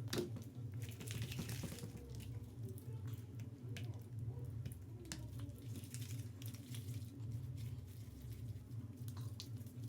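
Slime and glue being mixed and squished by hand: scattered soft squelches and small light clicks over a steady low hum.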